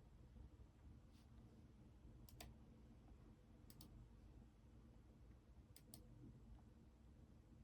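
A computer mouse clicking quietly three times, each click a close pair of ticks, over faint room tone.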